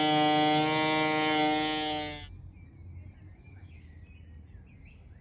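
Handheld electric cutting tool running with a steady high whine as it cuts through the van's sheet-metal body panel, stopping abruptly about two seconds in. Faint birdsong follows.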